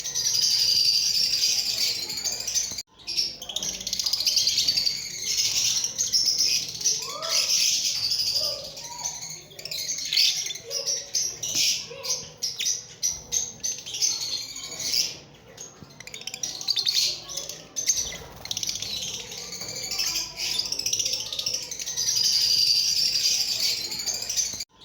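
A group of lovebirds chirping and chattering, a dense stream of rapid high-pitched calls with a few lower sliding calls in the middle. The sound breaks off briefly about three seconds in.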